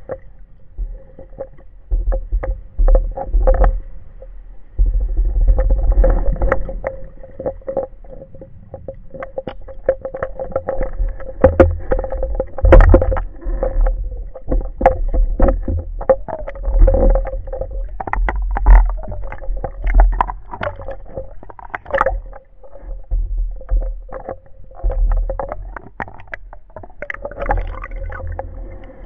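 Muffled underwater sound: irregular low rumbles of water moving over the microphone and scattered sharp clicks and knocks, over a steady hum.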